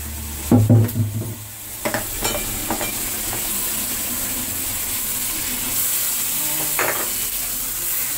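Shrimp sizzling in a frying pan with a steady hiss, while a utensil knocks and scrapes against the pan: a loud knock about a second in, a few lighter clicks soon after and another near the end.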